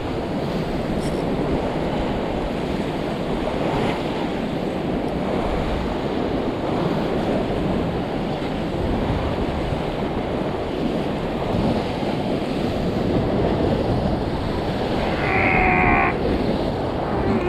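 Surf breaking and washing against a rock ledge, with wind on the microphone. Near the end a brief high squeal of a spinning reel's drag paying out line as a hooked mac tuna runs.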